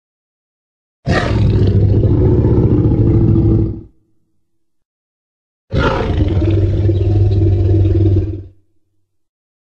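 Two deep monster roars in the style of the Jurassic Park T. rex, made as Greymon sound effects. Each lasts about three seconds and fades out at the end, with a couple of seconds of silence between them.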